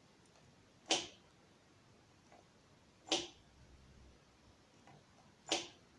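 Three sharp clicks about two seconds apart as the rear disc brake of a Kugoo M5 electric scooter is applied. The brake clamps the disc unevenly: the right pad pushes the disc inward and the wheel shifts.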